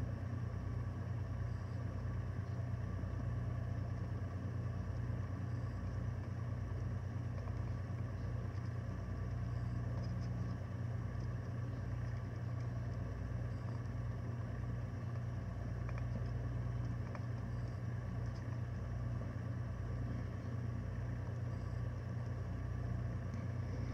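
A steady low hum with fainter steady tones above it, unchanging throughout, with no distinct knocks or clicks.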